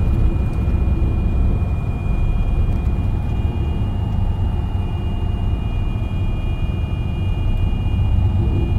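Semi truck's diesel engine running steadily at high revs in eighth gear, engine-braking a fully loaded truck down a steep downgrade with the service brakes off, heard from inside the cab as a steady low rumble with a thin high whine over it.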